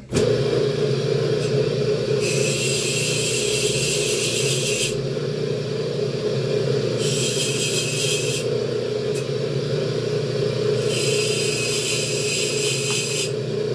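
Wire-brush bench grinder switched on and running steadily. Three times, for two to three seconds each, a harsh scraping comes over it as the pressure-cooker lid is held against the spinning wire wheel to clean it.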